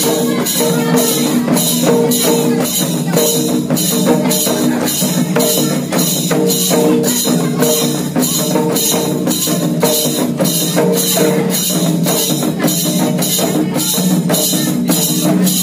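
Mahali Karam dance music played live on folk drums, beaten in a steady rhythm of about two strokes a second with a jingling metallic ring on each stroke, over a steady held melody line.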